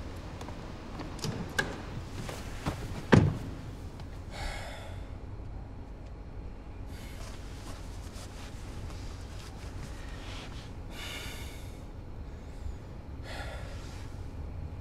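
A car door shutting with a single loud thud about three seconds in, after a few small clicks of getting in. Then a man breathing heavily and sighing several times.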